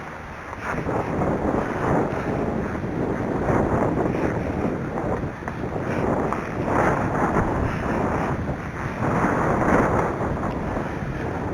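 Strong wind buffeting the microphone, rising and falling in gusts.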